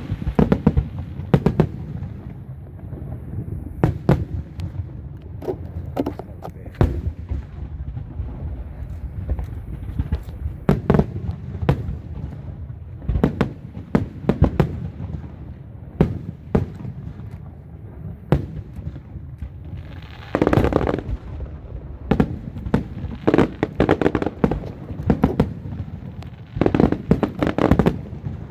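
Many sharp bangs and pops going off irregularly, with voices heard at times in the second half.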